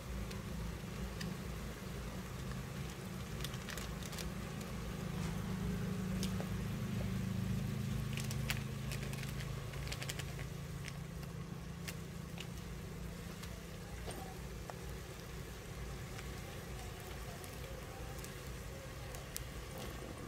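Wood fire in a chulha under a cooking pot, with a low steady rumble and scattered sharp crackles and pops.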